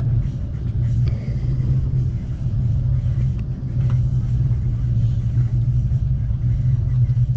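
Amtrak Cascades passenger train running along the track: a steady low rumble from the rolling train.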